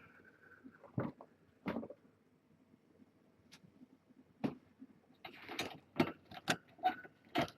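Scattered sharp clicks and knocks, a few single ones spaced out at first, then a quick run of them mixed with rustling over the last two seconds or so.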